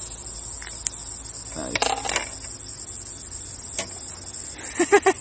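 Steady high-pitched insect chirring, with a few light clicks while a hook is worked out of a caught bass's mouth by hand. A short burst of voice comes near the end.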